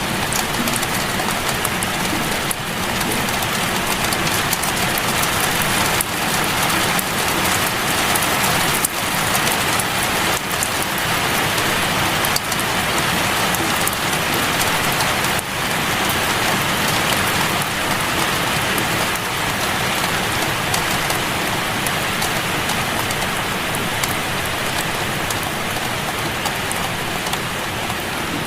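Rain falling steadily: an even hiss with scattered faint ticks of drops.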